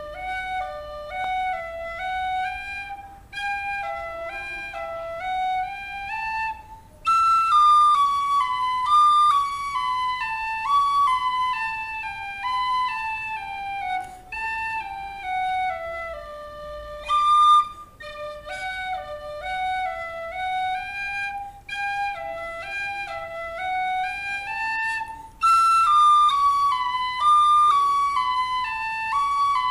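A solo melody played on a flute-type wind instrument, one note at a time: a phrase climbing step by step in the lower register, then a louder phrase that starts high and steps down. The pair of phrases is played twice.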